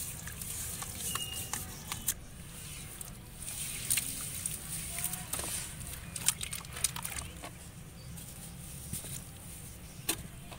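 Wet sand and cement lumps crumbled and squeezed by hand into a plastic tub of water: gritty crumbling, splashing and dripping, with sharp clicks now and then.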